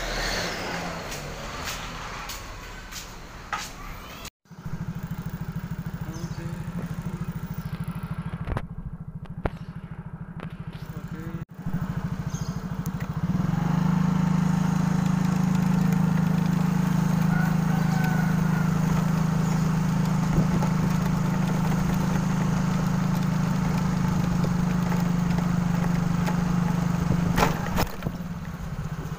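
Motorcycle engine running while being ridden, a steady low drone that grows markedly louder about 13 seconds in and then holds steady.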